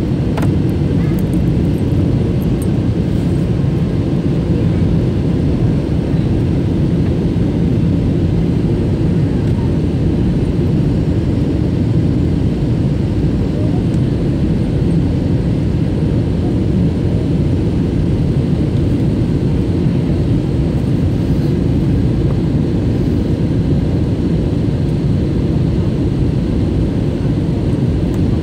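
Steady low rumble of jet engine and airflow noise inside the passenger cabin of an Airbus A321 airliner during descent, even and unchanging throughout.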